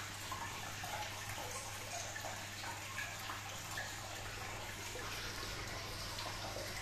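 Aquarium water trickling and bubbling from the tank filtration, over the steady low hum of a pump.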